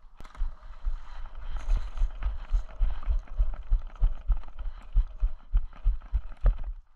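Running footsteps heard as low thuds, about three a second, jolting a body-worn camera, over a steady rushing noise. The sound cuts off abruptly near the end.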